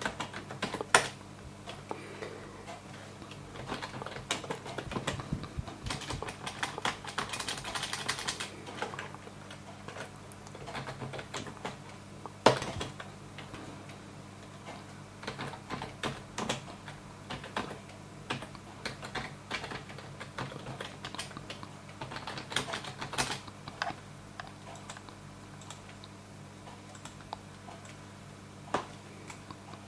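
Typing on a computer keyboard: irregular runs of keystrokes with pauses between them, and a few louder, sharper key hits about a second in and near the middle, over a steady low hum.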